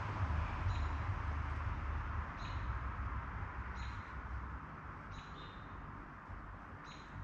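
A small animal's short, high chirp call, repeated about every second and a half, over a low rumble that slowly fades.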